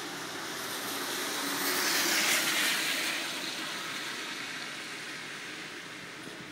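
A vehicle passing by on the street: a rush of noise that swells to a peak about two seconds in and then slowly fades away.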